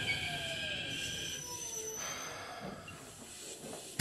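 Keikyu 1500-series electric train heard from inside the car: the Mitsubishi VVVF inverter and traction motors whine in several tones that fall in pitch as the train slows, over wheel and rail noise that gradually gets quieter.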